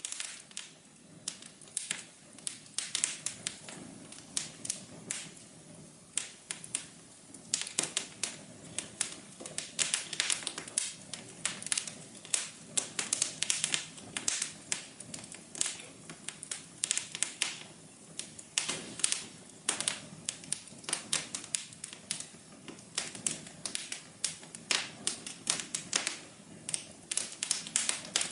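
Fireplace fire crackling: irregular sharp snaps and pops, several a second, over a soft steady hiss of burning.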